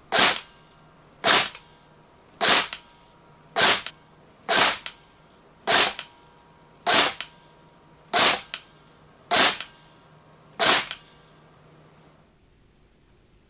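Tokyo Marui airsoft rifle dry-fired semi-automatic with no BBs loaded: ten single shots about a second apart, each a sharp double clack of the action cycling.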